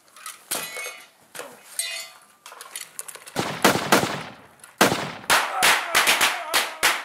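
Gunfire: a shot about three and a half seconds in, then a rapid string of shots near the end, each with a short reverberant tail.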